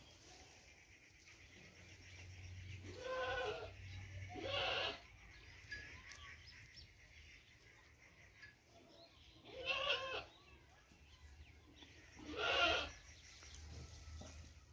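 Four short animal calls, each under a second, with a wavering pitch: two close together about three and four and a half seconds in, then one near ten seconds and one near twelve and a half seconds.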